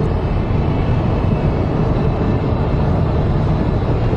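Steady low rumble with a hiss above it, with no distinct events.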